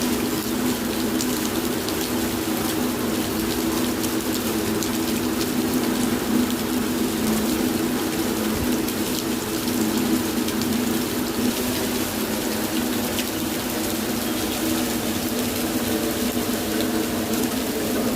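Steady rain falling, a dense, even spray of drop ticks over a steady low hum.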